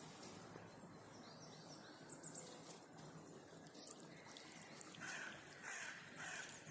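Faint outdoor waterside ambience: a quiet trickle of water, with a few short bird chirps about two seconds in.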